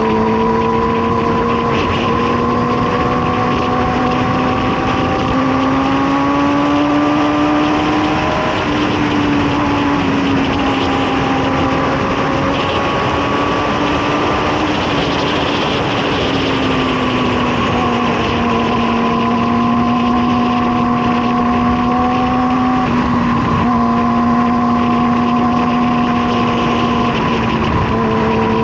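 Sport motorcycle engine running under way at steady cruising revs, with wind noise. Its pitch climbs gradually for the first eight seconds, eases back down in two steps, then holds steady.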